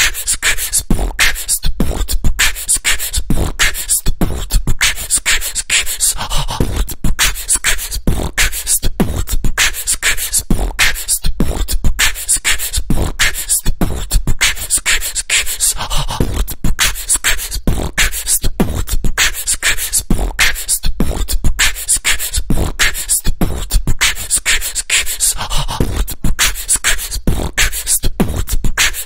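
Beatbox music loop: a fast, steady rhythm of vocal kick and snare hits, repeating without a break.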